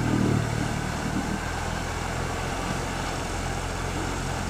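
Outboard motor of a small fishing boat running steadily under way: a low, even drone.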